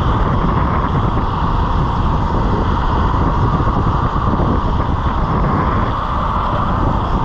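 Longboard wheels rolling fast down an asphalt path, a steady rolling noise, with wind buffeting the microphone.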